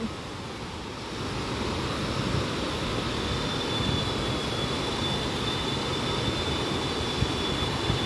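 Steady rushing of a waterfall and river rapids, growing a little louder after the first second. A thin, steady high whine joins about three seconds in.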